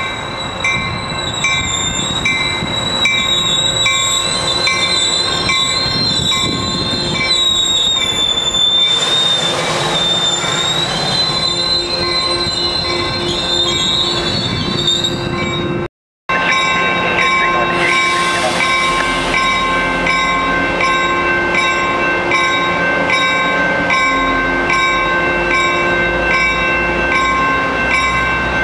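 Coaster commuter train's bilevel cars rolling slowly through a curve with a high, wavering wheel squeal, while a grade-crossing bell rings in a steady rhythm. After a cut about halfway through, the squeal is gone and the bell goes on over a steady hum from the train.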